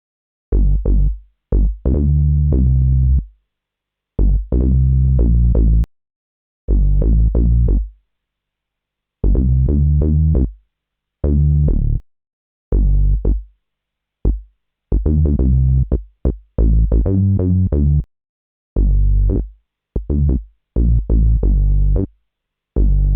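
Electronic bass sample loops: short, punchy low bass notes in phrases of one to two seconds, each phrase cut off by a moment of silence before the next.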